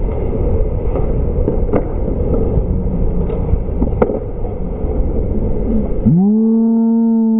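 Wind rush and ice noise on a helmet camera while skating during an ice hockey game, with a couple of sharp stick or puck clacks. About six seconds in, the skating noise stops and a loud, steady horn sounds, rising briefly to its pitch at the start.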